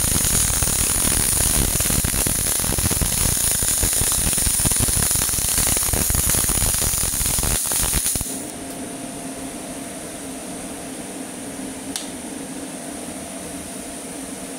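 CO2 MIG welding arc crackling and hissing steadily as an automatic carriage runs the torch along the seam; the arc cuts off suddenly about eight seconds in, leaving a steady machine hum and a single click a few seconds later.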